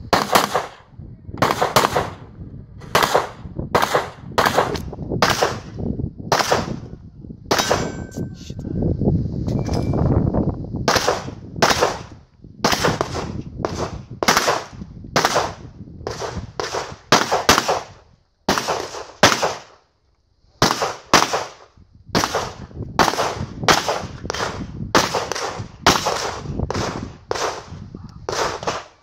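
Glock 34 9mm pistol fired in quick strings of shots, well over thirty in all, with short pauses between strings and one break of about two seconds about two-thirds of the way through. Steel targets clang when hit.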